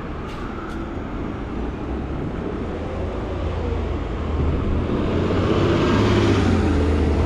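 City street traffic: a steady rumble of cars, with a vehicle coming closer and passing so that the noise grows louder through the second half.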